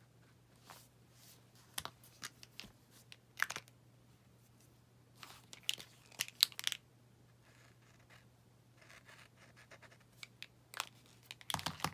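Paint marker at work on a painted board: faint scratchy strokes of the tip on the surface and a scatter of sharp little clicks and taps as markers are picked up and handled, loudest about six seconds in. A faint steady low hum lies underneath.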